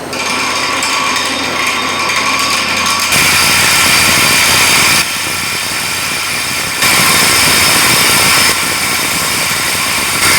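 Steady mechanical noise of a motor-driven machine or power tool running. It jumps abruptly between a quieter level and two louder stretches of about two seconds each, one about three seconds in and one about seven seconds in.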